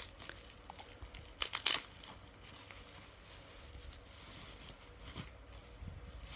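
Bubble wrap rustling and crinkling as it is handled and peeled off a doll, with a cluster of sharper crackles about a second and a half in, then softer rustling.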